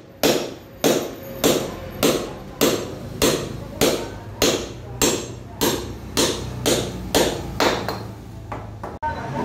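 Claw hammer driving nails into the 2x2 timber of a wooden partition frame: a steady run of about fifteen sharp blows, roughly three every two seconds, stopping near the end.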